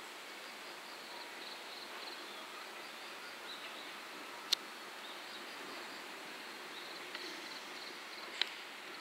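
Faint outdoor ambience of insects chirping in short, high, repeated trills, with two sharp clicks, one about halfway through and one near the end.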